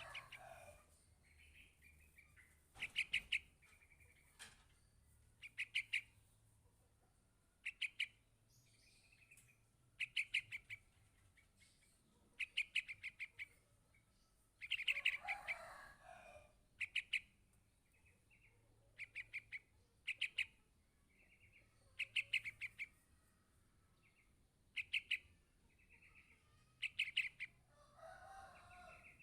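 Yellow-vented bulbul chick calling for its parent: quick bursts of several high chirps, repeated every two to three seconds, with a lower, rougher sound twice in between.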